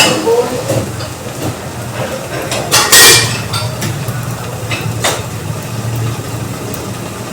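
Cookware clattering on a stove: a loud clank about three seconds in and a lighter knock about two seconds later, over a steady low hum.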